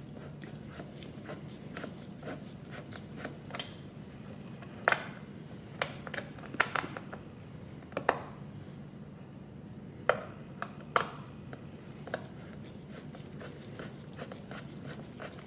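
Scattered sharp clicks and taps of hand tools and plastic trim while a car door panel's screws are driven back in, over a steady low hum.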